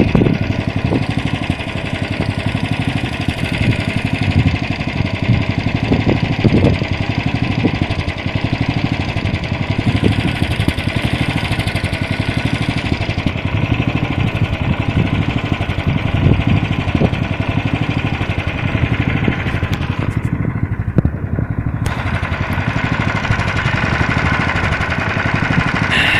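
Snowmobile engine running steadily, with occasional low thumps and buffeting.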